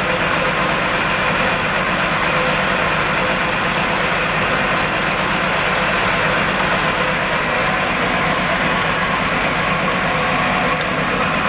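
ENCO 13 x 40 bench lathe running steadily under power with the automatic cross feed engaged, a constant geared-machine drone with no change in speed.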